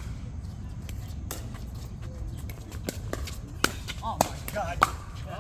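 Sharp knocks of a ball being hit in a game, half a dozen spread out, the loudest near the end, with short voices calling out between them over a steady low rumble.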